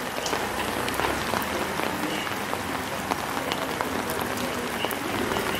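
Steady rain pattering on wet pavement: an even hiss full of small, quick drop ticks.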